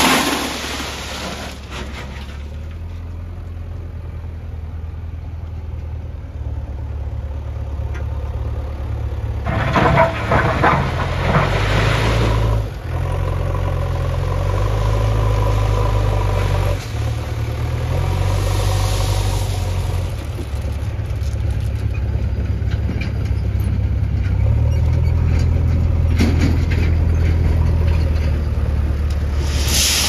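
Diesel engine of a JCB backhoe loader running under working load, its revs stepping up and down several times. A louder rattling, scraping burst lasts about three seconds starting near ten seconds in.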